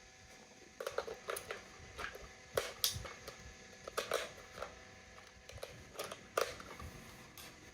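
Hands handling a toy and its packaging: irregular clicks, taps and rustles, about a dozen scattered through, with no speech.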